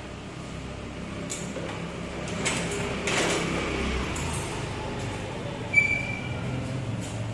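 Clunks, knocks and rattles of a motor scooter being handled and pushed off its stand, with a short high beep about six seconds in.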